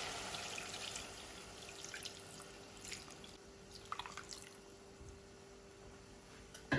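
Water poured from a plastic bottle into a hot pot of browned minced meat and tomato paste, the hiss fading over the first few seconds, followed by a few scattered drips. A sharp knock near the end.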